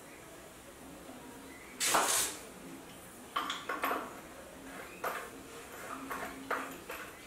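Hard plastic clatter and clicks as white vent caps are handled and pushed into the cell openings on top of a tubular inverter battery: a few separate rattles, the loudest about two seconds in, then more around the middle and near the end.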